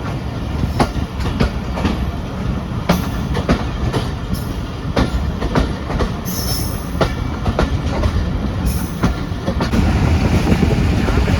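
Pakistan Express passenger train running on the rails, heard from aboard: a steady low rumble with irregular clicks of the wheels over the rail joints. Twice the wheels give a brief high squeal, and the rumble grows louder near the end.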